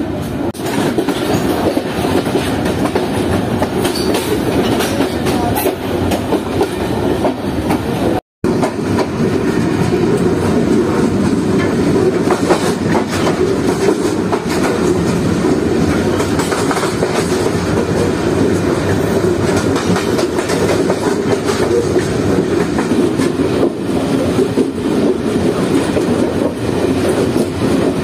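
Freight train running on the rails, heard from its guard van: a steady rolling rumble with the clickety-clack of wheels over rail joints. The sound drops out completely for a moment about eight seconds in.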